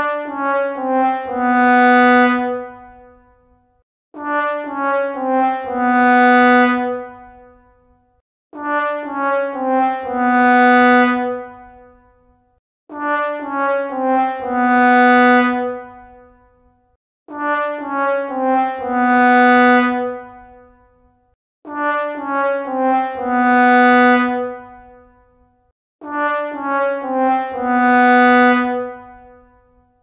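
The 'sad trombone' comedy failure cue on brass, 'wah wah wah waaah', repeated seven times: three short notes stepping down in pitch, then a long, loudest low note that swells and dies away before the next repeat.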